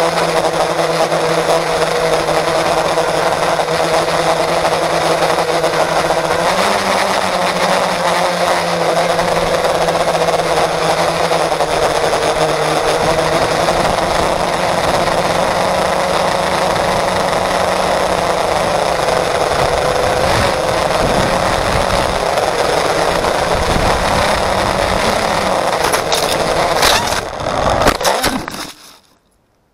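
FPV quadcopter's brushless motors and propellers whining steadily, picked up by the action camera mounted on the quad, with the pitch shifting as the throttle changes. Near the end there are a few sharp knocks as the quad tumbles, then the sound cuts off abruptly.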